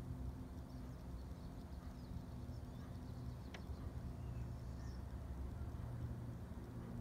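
Outdoor ambience: a low, steady hum and rumble, with faint high bird chirps and a single sharp click about halfway through.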